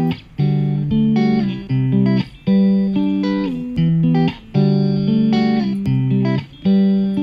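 Background music: a guitar playing plucked notes in short phrases, with a brief break about every second.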